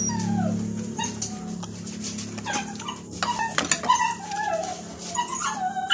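Wet chewing and lip-smacking of skewered tocino, with many short clicks, over a steady low hum. High whines that fall in pitch come again and again through it.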